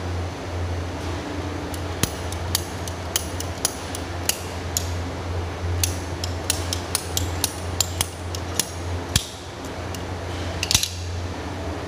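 Red ratchet PVC pipe cutter clicking in quick, irregular snaps as it is squeezed through a PVC pipe, then a single click near the end, over a steady low hum.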